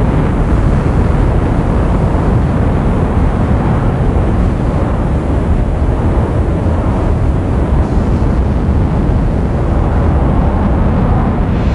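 Sci-fi spaceship engine rumble sound effect: a loud, steady, low rumbling drone without any clear pitch.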